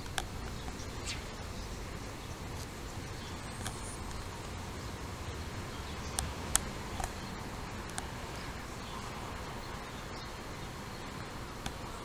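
Steady low outdoor background noise with a few scattered short, sharp clicks and no clear birdsong.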